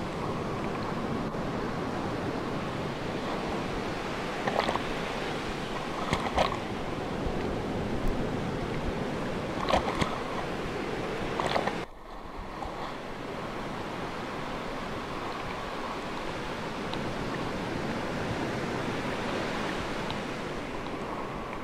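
Sea surf washing steadily, with a few short splashes in the first half. The sound dips suddenly about halfway through, then the surf goes on.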